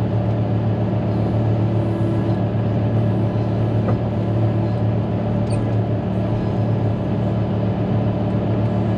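Caterpillar motor grader's diesel engine running at a steady, even drone while the machine travels along a dirt road, heard from the operator's seat.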